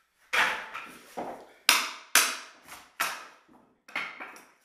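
A quick series of about eight sharp wooden knocks and clacks in four seconds: flood-damaged, stapled-down hardwood flooring strips being pried up with a steel crowbar and broken pieces landing on the subfloor.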